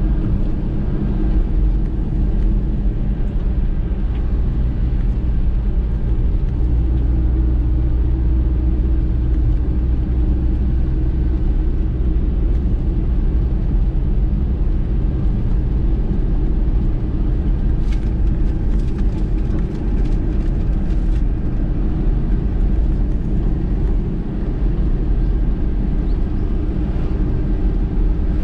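Car travelling along a road: steady engine and road rumble, with a few faint ticks about eighteen to twenty-one seconds in.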